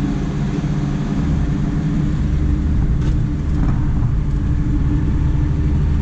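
Tractor diesel engine running at steady revs, a low, even drone.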